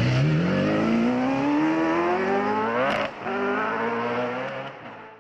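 Open-wheel hillclimb race car accelerating hard away uphill, its engine revs climbing. About three seconds in there is a quick upshift, then the revs climb again as the car fades into the distance.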